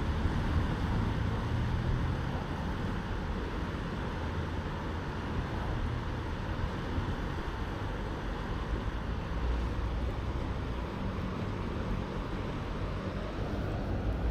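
Steady rushing of high floodwater, with wind buffeting the microphone in low gusts.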